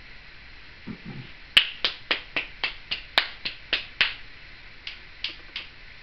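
Timneh African grey parrot making a rapid series of sharp clicks, about four a second, then a few more spaced clicks near the end.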